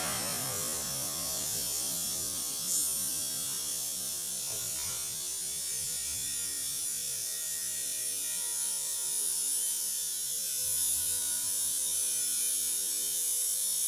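A steady low hum with hiss and no distinct events; a small bump about two and a half seconds in.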